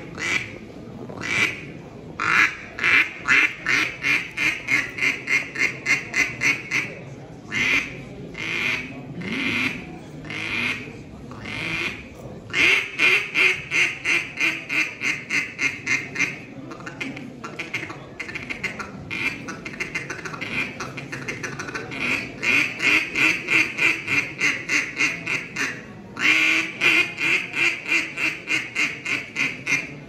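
Hand-blown mallard duck call sounding quick runs of loud quacks, about four or five a second, broken up by slower, spaced single quacks and short pauses.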